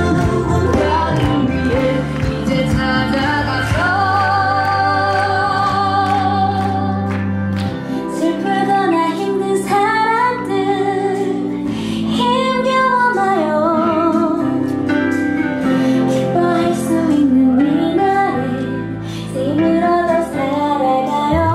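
Music: a woman singing a melody with wavering held notes over instrumental accompaniment with sustained chords and bass.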